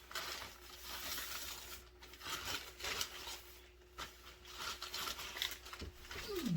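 Rustling and handling noises in irregular bursts as a fishing rod and its packaging are unboxed, with a brief falling squeak near the end.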